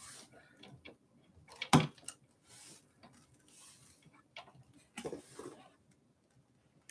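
Hands working at the rear of an e-bike frame during unboxing: scattered light clicks and soft rustling, with one sharp click a little under two seconds in and a few more clicks around five seconds.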